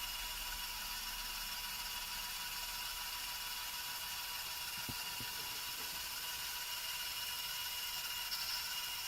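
Small electric motor driving a LEGO model ceiling fan: a steady whir with a thin whine. Two faint ticks come about five seconds in.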